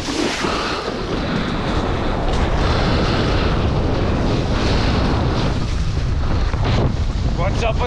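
Strong wind buffeting an action camera's microphone while kitesurfing, with water rushing and splashing as the board skims across choppy water; a steady, heavy rush.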